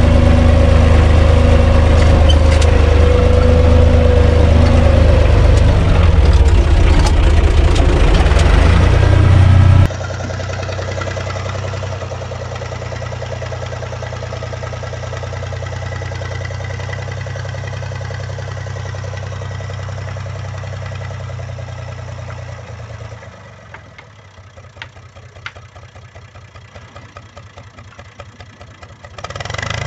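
Universal U445 DT tractor's three-cylinder diesel engine running steadily while it drives a rotary tiller through garden soil. It is heard loud from inside the cab, with a whine over the first few seconds, then quieter from outside. After about twenty-three seconds it drops further to a pulsing beat, and it comes back loud at the very end.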